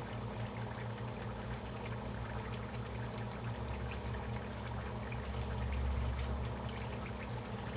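Potato chunks deep-frying in a skillet of hot oil: a steady bubbling sizzle with many fine crackles.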